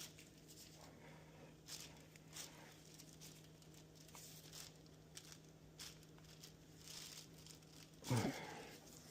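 Faint, scattered metal clicks and scrapes of a pin wrench being worked against a hydraulic cylinder's gland nut, its pins not going into the paint-filled holes, over a steady low hum. About eight seconds in there is a short, louder sound that slides down in pitch.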